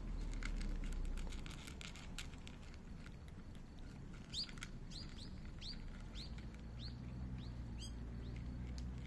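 Cat crunching dry kibble, a run of small clicks in the first couple of seconds. Then a bird calls a series of about ten quick chirps, each dropping in pitch, over a low steady hum.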